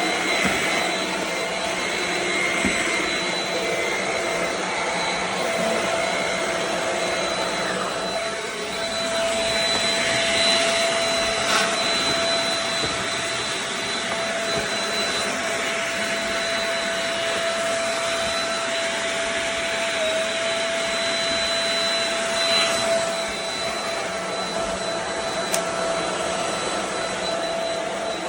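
Shark HV322 Rocket corded stick vacuum running steadily: a continuous rush of air with a steady motor whine.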